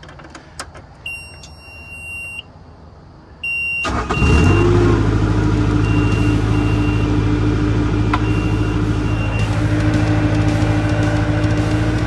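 Bobcat skid-steer loader starting up. A click as the key turns and a steady high warning beep from the cab, twice. Then the diesel engine cranks and catches about four seconds in and settles into a steady idle, with short beeps still sounding now and then.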